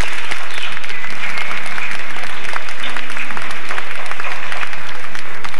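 Audience applauding, a dense steady patter of many clapping hands, with music playing underneath.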